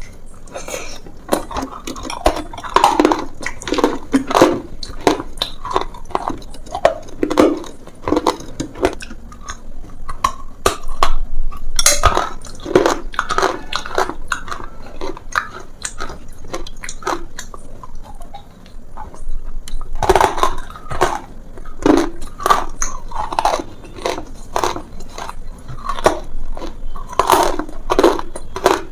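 Someone biting and chewing something crunchy close to the microphone: a dense, irregular run of sharp crunches.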